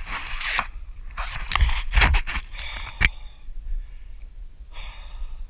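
A plastic sit-on-top kayak being paddled at sea: water splashing with a run of sharp knocks and scrapes, loudest about two and three seconds in, then quieter.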